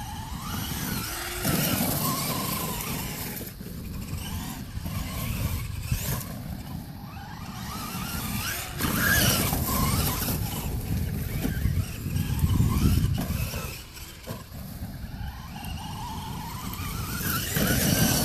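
Traxxas E-Maxx RC monster truck driving on dirt, its 6-pole 1900kv brushless motor on a 4-cell pack whining up and down in pitch with the throttle, over a low rumble.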